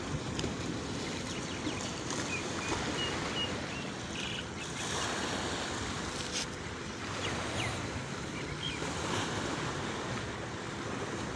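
Sea waves washing onto a shore in a steady surf, with a few faint bird chirps.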